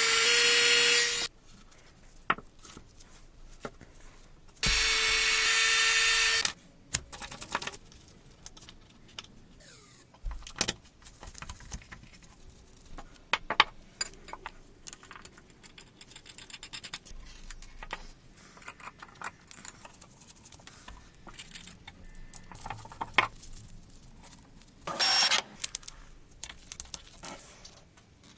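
Electric bell ringing in two bursts of about two seconds each, its clapper rattling rapidly against the gong with a steady ringing tone, the second burst about five seconds in. Between them come light clicks and handling of small metal parts, and a shorter rattling burst near the end.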